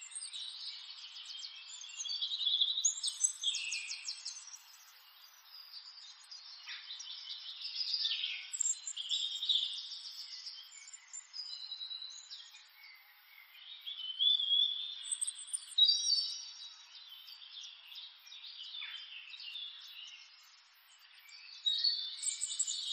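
Small birds chirping and singing, with quick trills, in clusters separated by short lulls.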